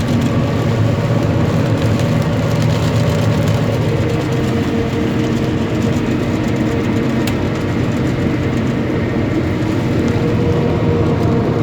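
Claas Jaguar 960 forage harvester chopping maize: a heavy engine and machinery running steadily, a loud, even drone.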